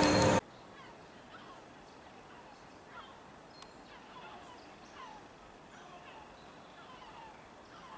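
Train noise with squealing wheels cuts off abruptly about half a second in. After that, birds call faintly: repeated short chirps that fall in pitch, over a light outdoor background.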